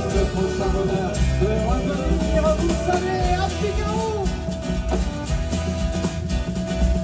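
A live band plays an upbeat country-rock song with drum kit, electric and acoustic guitars and violin. A wavering melody line runs over the beat and settles on one held note about two-thirds of the way in.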